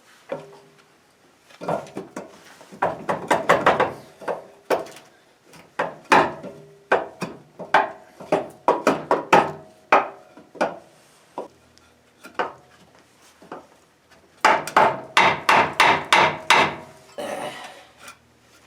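Rapid bursts of hammer blows on metal, about five strikes a second, with a faint ring after the hits. The blows come in three runs, near the start, in the middle and toward the end.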